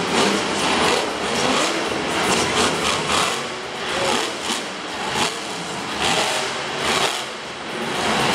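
Monster truck's supercharged V8 engine revving hard, rising and falling in repeated surges as the truck climbs over crushed cars and swings around on dirt.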